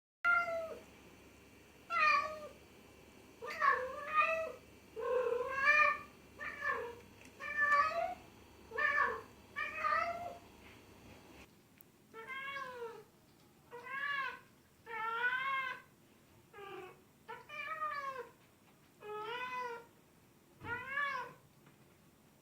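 Domestic cat meowing over and over, short arching calls about once a second, with the background hiss changing about halfway through.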